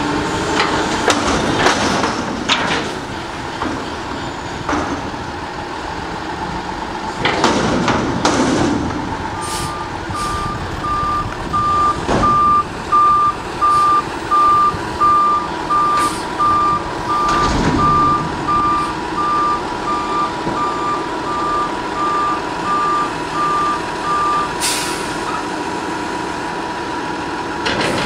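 Front-loader garbage truck with a New Way Mammoth body emptying a dumpster: engine and hydraulics running with clanks and bangs as the raised container is dumped. From about nine seconds in, the reversing alarm beeps about once a second for some fifteen seconds while the truck backs up, with an occasional knock.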